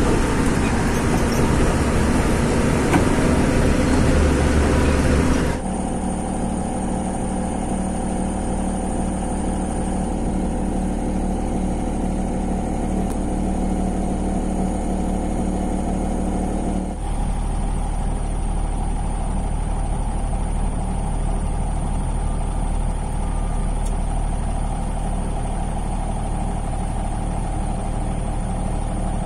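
Heavy diesel engines of earth-moving machinery and trucks running steadily. The sound is loud and rough for the first five or so seconds, then changes abruptly to a steadier engine drone with a hum of several tones, and shifts again about 17 seconds in.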